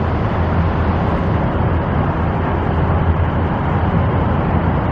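Steady low rumble of vehicle noise with a constant hiss above it, no distinct events.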